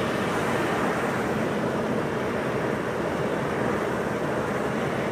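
Steady road and engine noise of a pickup truck driving, heard from inside the cab.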